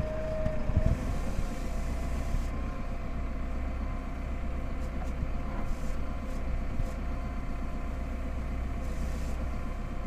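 Tractor engine running steadily under load, pulling a mounted plough that has just been dropped into the ground to cut a light marking furrow. A steady whine sits over the engine hum, and there are a few knocks about a second in.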